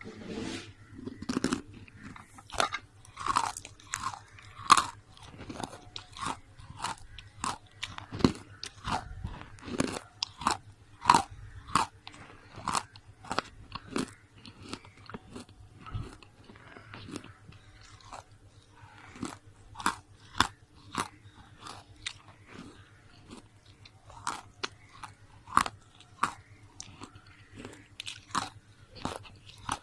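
Close-up chewing of roasted slate: a long run of sharp, brittle crunches, about one to two a second, with quieter chewing between bites.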